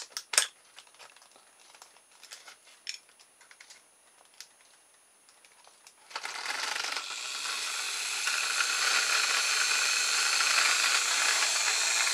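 Light clicks and taps of a battery and wires being handled, then about six seconds in a kit-built DC electric motor, a spinning wire coil between fixed magnets, starts up and runs with a steady whir. It starts once the fussy battery adapter finally makes contact.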